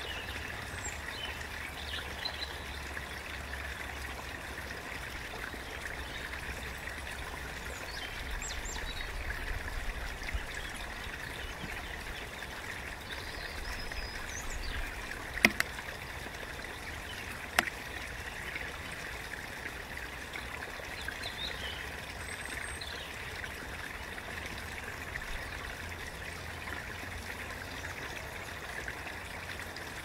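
Small stream running steadily over stones. About halfway through there are two sharp clicks, roughly two seconds apart.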